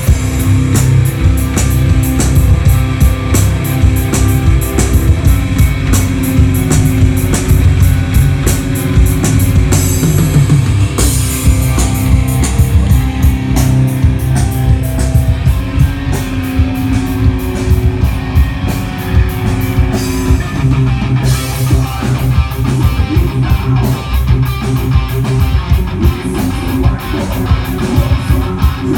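Live heavy rock band playing loud: distorted electric guitars over a drum kit with constant cymbal and drum hits, with the boomy, clipped sound of a phone recording close to a concert PA.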